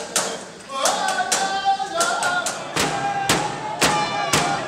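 Inuit frame drums beaten in a steady rhythm of about two strikes a second, with voices singing held notes over them.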